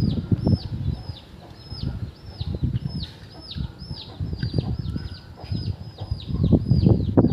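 A bird chirping over and over in short falling chirps, about two to three a second, over low irregular rumbling knocks that are loudest near the start and again near the end.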